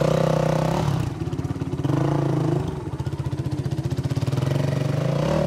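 Dirt bike engine under load on a steep dirt hill climb, revving up and down as the throttle is worked. The revs dip briefly about a second in and again near the middle.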